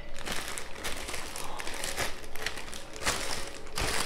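Clear plastic packaging crinkling in irregular bursts as a packaged aluminium tripod is handled and lifted out.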